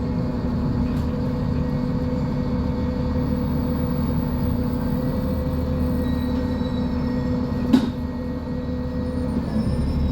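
Diesel engine of a Mercedes-Benz O500U city bus running steadily with a low drone and a steady hum, with one sharp click about three quarters of the way through.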